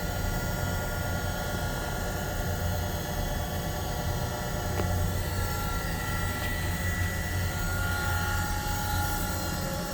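Okamoto Linear 618 surface grinder running, its spindle motor giving a steady hum with a few faint constant whining tones above it.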